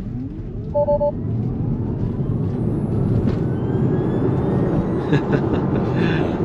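Tesla Model Y's electric drive motor whining under hard acceleration, its pitch rising steadily as speed builds, over growing tyre and road noise in the cabin. A short two-note electronic chime sounds about a second in.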